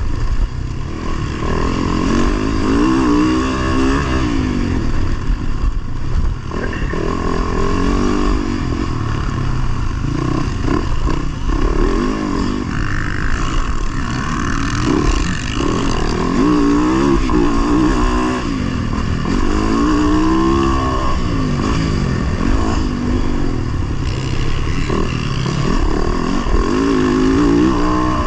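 Motocross dirt bike engine heard from on board the bike, revving hard with its pitch climbing and dropping back over and over through the lap.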